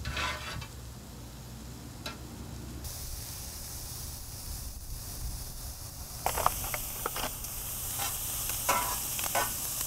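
Food sizzling on a Weber Q gas grill's griddle and grates: diced peppers, onions, ham and sausages frying with a steady hiss, which gets louder around three and six seconds in. Short scrapes and clinks of a metal spatula and tongs against the cooking surface come through near the start and in the last few seconds.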